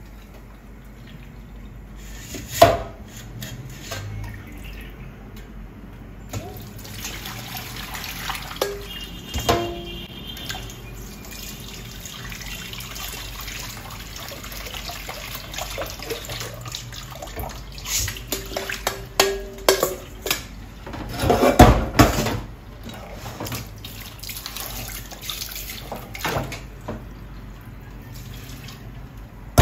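Water splashing and draining in a stainless steel sink as beans are rinsed in a metal mesh strainer over a steel bowl, with scattered clinks and knocks of metal on metal. A louder burst of splashing and clattering comes about two-thirds of the way through.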